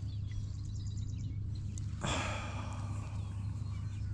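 A man's long sigh about two seconds in, over faint bird chirps and a steady low hum.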